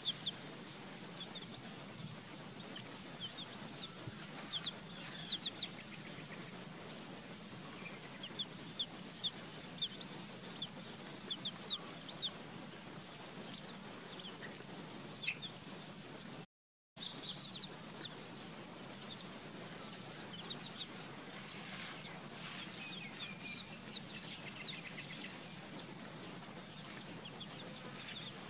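Young chicks peeping: short high peeps in quick runs, over a steady low background hum, with a brief break about two-thirds through.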